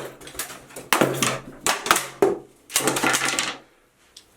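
Hammer repeatedly smashing a miniature wooden house kit: a quick flurry of sharp blows and cracks in several bursts, stopping a little before the end.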